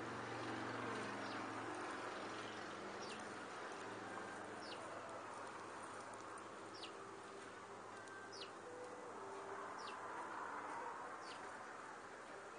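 Backyard ambience: a steady low hum and hiss, with a short, high, falling chirp repeating about every second and a half.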